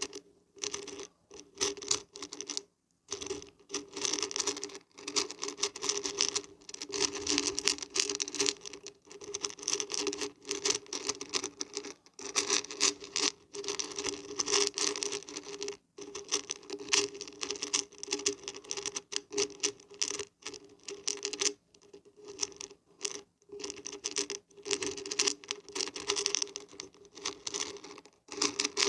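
Dried beans and barberries being shaken, rattling and pattering together in bursts with short pauses between.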